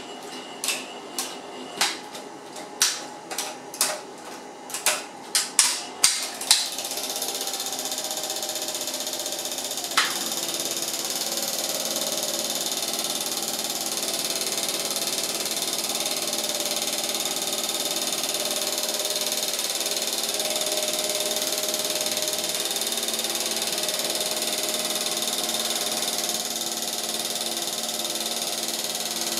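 Cine film projector starting up: a run of clacks that come faster and faster over the first six seconds or so, then a steady mechanical whirr with a whine in it, and a single click about ten seconds in.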